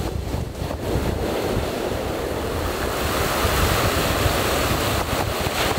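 Small waves breaking and washing up a sandy beach, the wash swelling a little after about three seconds, with wind rumbling on the microphone.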